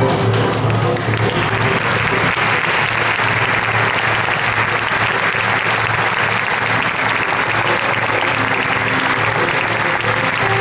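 Theatre audience applauding steadily as the pit orchestra's number ends in the first second, with music carrying on faintly under the clapping.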